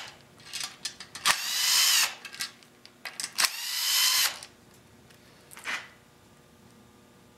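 Bosch power drill with an 8 mm socket backing out the valve cover bolts on a Honda GX31 engine: two runs of about a second each, the motor whine rising in pitch as it spins up, with small clicks of the bolts and socket between them.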